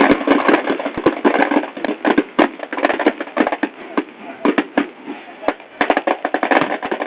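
Large São João bonfire burning with dense, rapid cracking and popping. The popping thins out for a moment midway, then picks up again.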